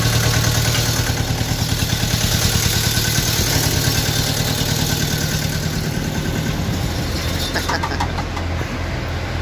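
Deutz TCD 2011 L04 four-cylinder turbo diesel idling steadily and evenly, running smoothly on all cylinders now that two faulty injection pumps have been replaced and its misfire and shaking are gone.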